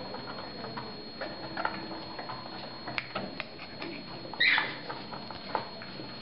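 Masked lovebird chick being spoon-fed, making soft squeaks and clicks at the spoon, with one louder squawk about four and a half seconds in.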